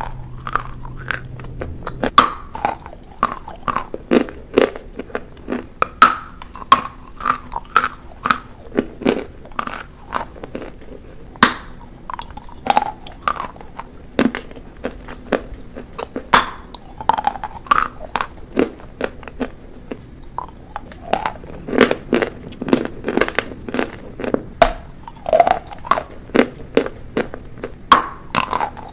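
Edible chalk being bitten and chewed close to the microphone: a steady run of sharp, dry crunches and snaps at an irregular pace.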